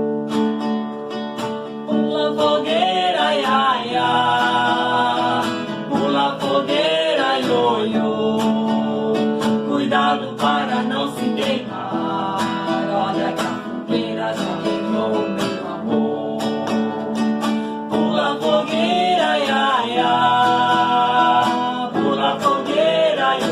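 Music with guitar and plucked strings under a wavering melody line that comes in phrases of a few seconds.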